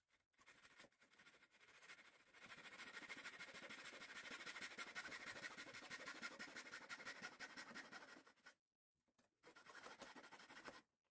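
Small fine-bladed hand saw cutting into a thin wooden bulkhead of a model ship hull. It makes a quick, even rasp of short strokes, stops about eight and a half seconds in, then saws again for another second or so.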